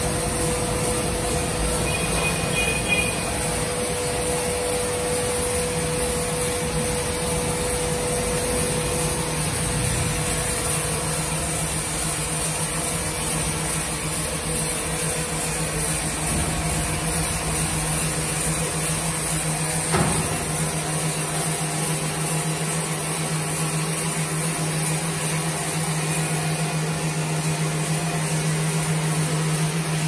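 Multi-blade sawmill machine running steadily on its rail track, a continuous motor hum and machine noise. A higher whine fades out in the first half while a lower hum sets in, and one sharp click comes about twenty seconds in.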